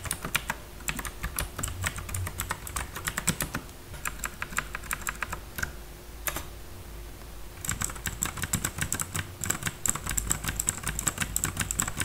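Typing on an HP GK320 mechanical keyboard with clicky blue switches: fast runs of sharp key clicks, with a short pause a little past halfway before the typing picks up again.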